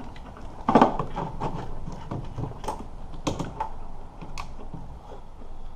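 Wiring-harness connectors being handled and pushed onto the engine computer (PCM): plastic clicks and knocks with rustling of the harness, the loudest knock a little under a second in.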